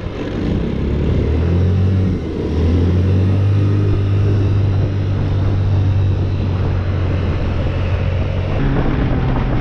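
Car engine drone heard from inside the cabin while driving: a low, steady hum that climbs, dips briefly about two seconds in, then holds steady.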